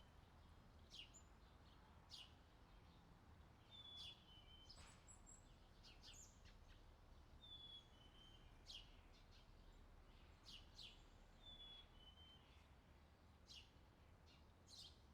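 Faint bird chirping: a short two-note falling call repeats every three to four seconds, with brief sharp chirps in between, over a low steady hum.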